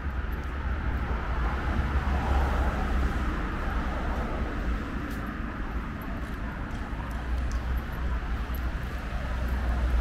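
City street ambience dominated by road traffic: a steady low rumble of passing vehicles that swells a little a couple of seconds in and again near the end.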